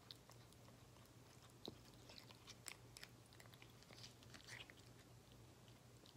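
Faint, irregular clicks and smacks of a Siamese cat chewing soft wet cat food from a spoon, over a low steady hum.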